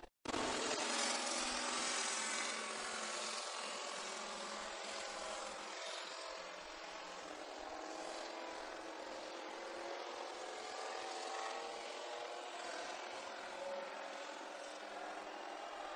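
MotoGP racing motorcycle engines running at high revs, their pitch wavering under a steady hiss; the sound cuts out briefly at the very start.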